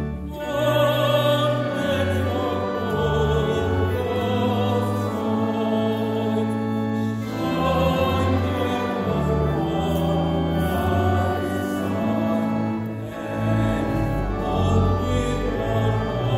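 A church choir singing, with an accompaniment holding long low notes beneath the voices. The phrase breaks off briefly about halfway through and again a few seconds later.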